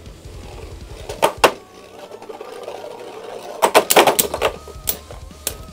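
Beyblade spinning tops battling in a small plastic stadium: sharp clacks about a second in, then a steady high whine from the spinning tops, and a quick run of clattering hits about four seconds in.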